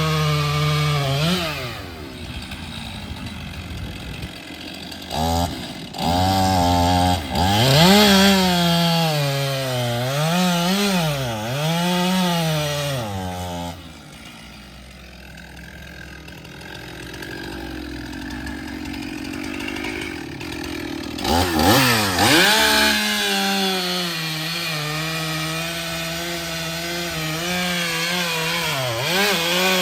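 Chainsaw revving up and down repeatedly as it cuts wood, easing back to a quieter idle for several seconds midway, then revving again and running steadily at high speed near the end.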